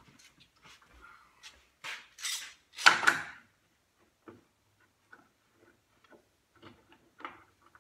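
Clatter of a metal clamp being set down and handled on a wooden table saw sled, with a sharp knock about three seconds in, then faint clicks and scrapes as the clamp is fitted and tightened on a wooden stop block.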